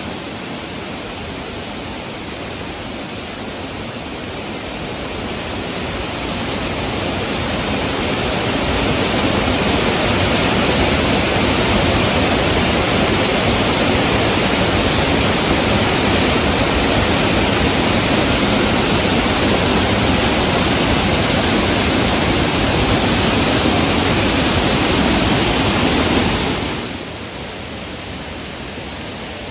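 Steady rushing roar of a large waterfall, growing louder over the first ten seconds or so, holding, then dropping off suddenly near the end.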